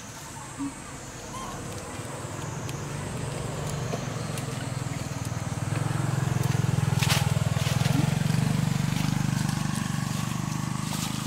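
Low engine rumble of a motor vehicle, building over several seconds, loudest in the second half, then cutting off suddenly at the end. A faint high wavering whine runs underneath.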